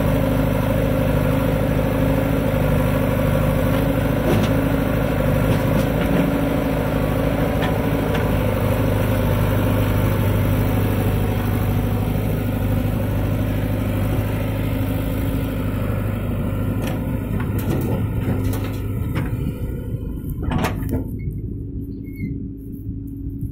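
Diesel engines of a JCB 3DX backhoe loader and a Mahindra 415 DI tractor running steadily at close range. The engine sound thins near the end, where a few knocks come through.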